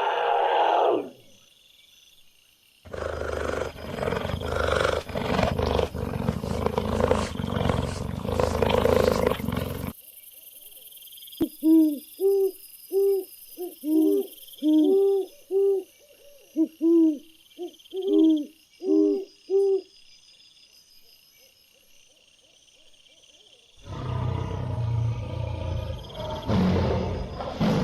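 Animal calls in three parts: a long stretch of loud, rough calling, then a series of about a dozen short hooting notes, then loud, rough calling again near the end.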